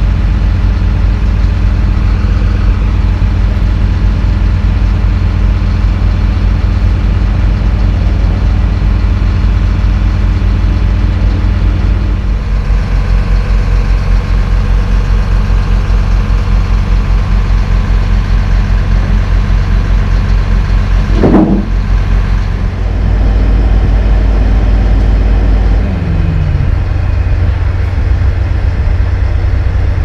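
Heavy diesel engine idling steadily at a low, even pitch; the engine note changes about twelve seconds in, and a short louder sound cuts in about two-thirds of the way through.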